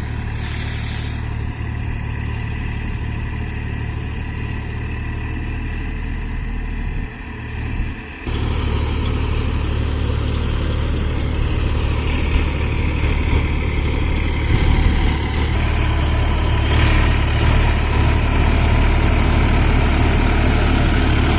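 Massey Ferguson 254 Dynasmart tractor's diesel engine running steadily. About eight seconds in, the sound briefly drops away, then returns louder and stays so.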